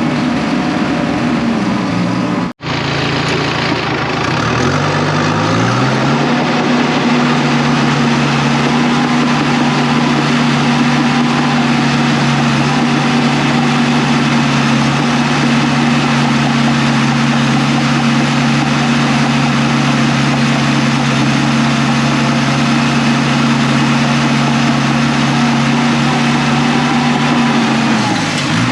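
Diesel engine of a heavy earthmoving machine running steadily at high revs. It cuts out for an instant about two and a half seconds in, then its pitch climbs back up, and it sags briefly again near the end.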